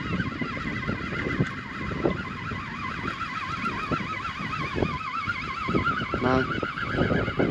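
Fishing reel being wound in: a wavering whine that rises and falls several times a second, with light knocks and rattles underneath.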